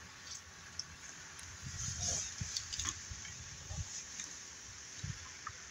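Faint outdoor background of low, irregular rumbles and light rustling, with a few small clicks.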